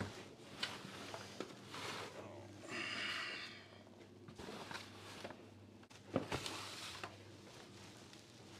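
Quiet room tone with a steady low hum, broken by a few light knocks and clatters of metal trays of braised pork hocks being handled, the sharpest about six seconds in, and a brief hiss about three seconds in.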